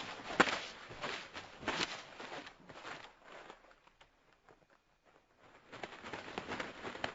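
Sound-effect wing flaps of a large pterosaur: an irregular series of soft whooshing thumps that fades away over about three seconds, then after a short pause a second burst of flaps near the end.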